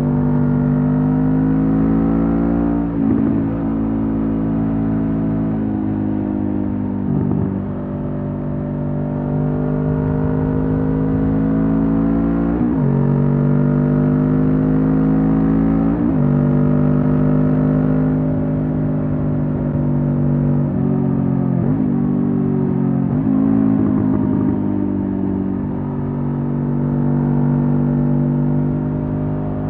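Honda CB500F's 471 cc parallel-twin engine through a Mivv GP Pro aftermarket exhaust, riding under throttle. The engine note climbs steadily and then drops sharply about six times as gears change, with two or three quick shifts close together past the middle.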